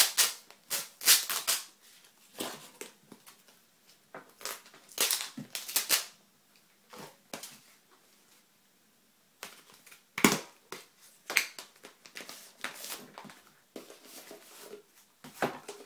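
Sealed packaging being worked open by hand: irregular sharp crackles and crinkles, with a lull of about two seconds midway.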